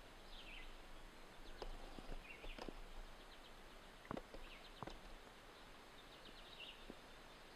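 Faint outdoor ambience: a few short, high bird chirps over a soft hiss, with a handful of faint sharp clicks scattered through.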